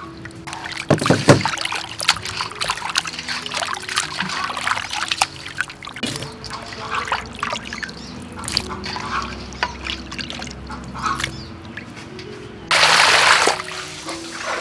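Water splashing and trickling around live swamp eels in a metal colander and pot, with sharp clicks and knocks from handling. Near the end there is a louder rush of water lasting under a second. Soft background music with held notes plays underneath.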